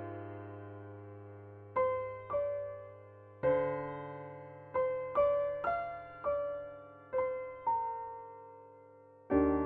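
Slow, gentle piano music: single notes and chords struck every half second to a second or so, each ringing and fading out over a sustained low bass.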